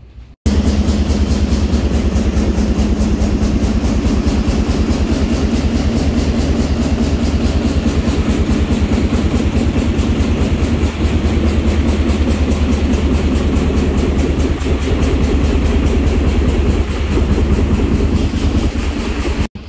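An engine running steadily and loudly close by, with a fast, even firing rhythm and a deep low drone.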